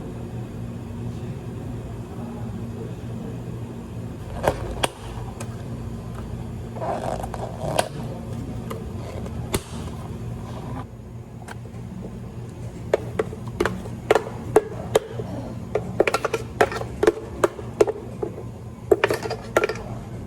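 Drink preparation at a cafe counter: sharp clinks and knocks of cups, utensils and ice over a steady low machine hum, scattered at first and coming thick and fast in the second half.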